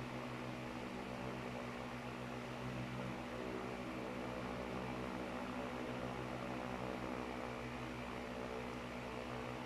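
Steady electrical hum with an even hiss, several low tones held unchanging, typical of a running household appliance such as a fan or refrigerator.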